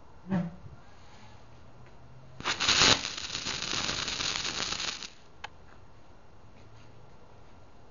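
A short knock, then about two and a half seconds in a pulled 5.56 tracer bullet's tracer compound ignites and burns with a loud hiss. The hiss is loudest at first, lasts about two and a half seconds and stops abruptly. The burn shows the tracer is still live.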